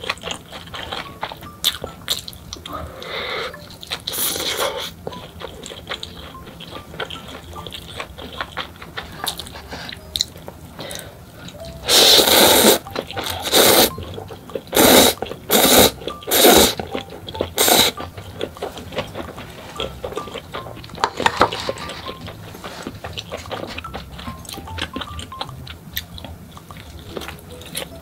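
Close-miked eating: chewing with small crunchy clicks, then about halfway a run of about six loud slurps of instant ramen noodles over some six seconds, with faint background music.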